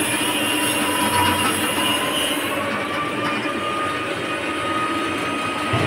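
Palm-fruit press machine running: a steady mechanical clatter with a thin metallic squeal that rises a little in pitch partway through and then holds. There is a single low knock near the end.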